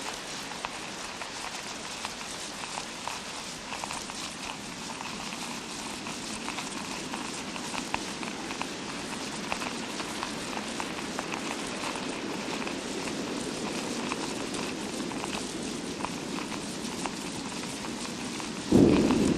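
Fake rain sound effect: a dense, steady patter of many small drop-like ticks over a hiss. Near the end a louder, lower rushing noise starts abruptly.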